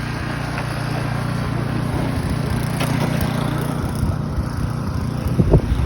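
A motor engine runs steadily with a low rumble, and a short low thump comes near the end.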